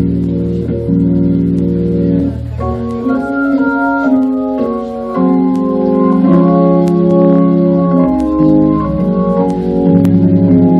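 Organ playing slow, held chords with a melody moving above and bass notes underneath, the harmony shifting every couple of seconds.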